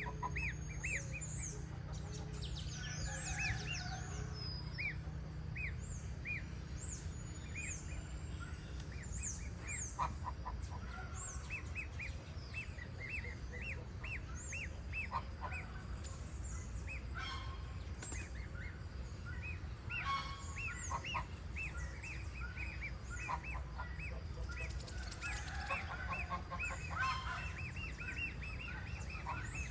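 Goslings peeping: many short, high, repeated peeps overlapping from several birds at once, over a steady low rumble.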